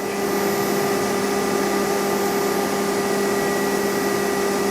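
FANUC Robodrill α-T14iDs machining centre's BT30 spindle running unloaded at a steady 12,000 RPM: an even hum with several held tones over a hiss.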